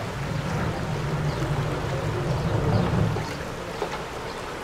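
Diesel engine of a backhoe loader running with a steady low drone that eases off after about three seconds, over the rush of floodwater flowing across the road.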